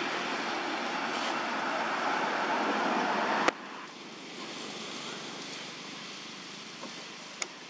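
Steady rushing outdoor background noise that drops suddenly with a click about three and a half seconds in, then carries on more quietly; a short sharp click near the end.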